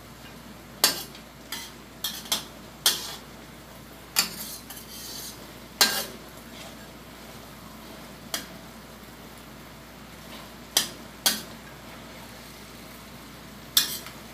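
Spatula scraping and knocking against a metal wok as simmering chicken adobo is stirred: about a dozen sharp scrapes at irregular intervals over a steady sizzle of the sauce.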